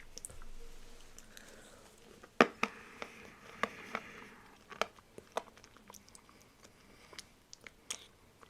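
Hard sugar candy (konpeito) being bitten and crunched between the teeth: a run of sharp cracks, the first and loudest about two seconds in, then smaller ones.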